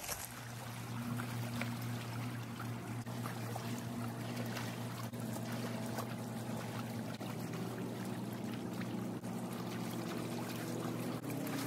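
Lake water lapping and trickling at the shoreline, over a steady low engine drone from a boat out on the lake.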